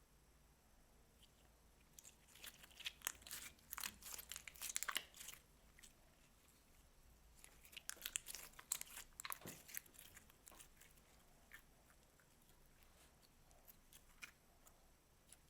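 Slime being squeezed and worked by hand, giving off crisp crackles and crunchy clicks. There are two dense flurries of crackling with a pause between them, then a few scattered clicks near the end.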